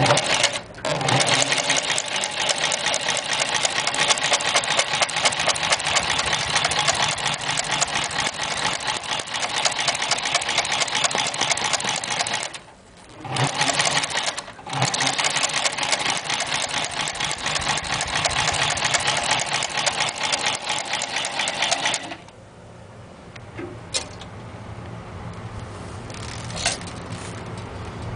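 Consew 2050 cylinder-arm walking-foot sewing machine stitching through thick layers of leather: a fast, steady run of needle strokes. It pauses briefly twice near the middle. About two-thirds of the way through the stitching stops, leaving only the motor's low hum and a single click.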